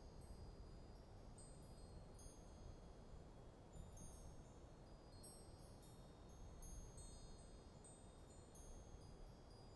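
Wind chimes tinkling faintly in a light breeze, high ringing notes struck at irregular moments and overlapping as they ring out, over a low steady wash of wind.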